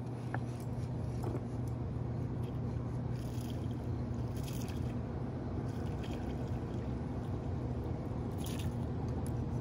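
Steady low rumble of moving water with hum underneath, broken by a few brief faint rasping bursts from a fishing reel as a fish is reeled in, twice in the middle and once near the end.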